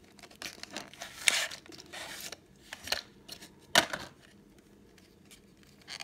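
A cardboard-and-plastic blister pack being opened: the card sleeve rustles and the thin clear plastic tray crinkles as it is pulled free, in several short bursts, with a sharp click about four seconds in.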